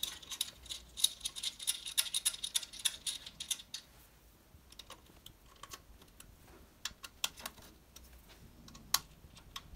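Rapid, light metallic clicking and ticking as the handlebar screws are turned in by hand, finger-tight, for about the first four seconds, then a few scattered clicks.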